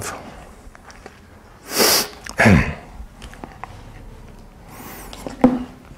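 A person sneezes about two seconds in: a sharp hissing burst followed by a short voiced sound that drops in pitch. Small clicks follow as the pages of a book are handled.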